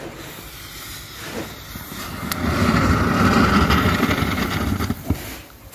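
Exothermic (thermite) welding charge igniting and burning at a ground-rod cable connection: a rushing, crackling fizz that builds over about two seconds, stays loud for about two seconds, then dies away near the end.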